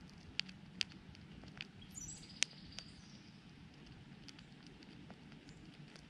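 Eastern chipmunk chewing and cracking food close by, making sharp crunchy clicks, several in the first three seconds and sparser after. A brief high chirp comes about two seconds in.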